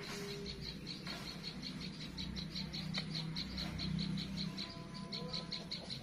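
Insect chirping in a fast, even pulse, about six or seven high-pitched chirps a second, over a low steady hum.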